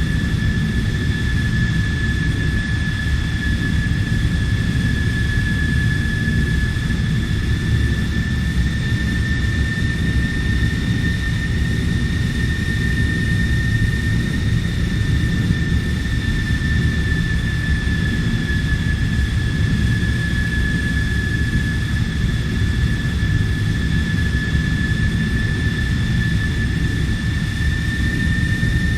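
Jet fighter engine in flight: a steady low rumble under a constant high-pitched whine that holds nearly level throughout.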